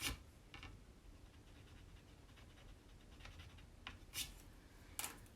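A few brief scratching and tapping sounds of small craft items being handled on a worktable, the loudest right at the start, over faint room tone.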